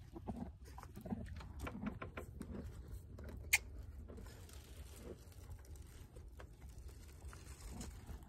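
A horse chewing treats, a run of irregular crunches, with one sharp click about three and a half seconds in.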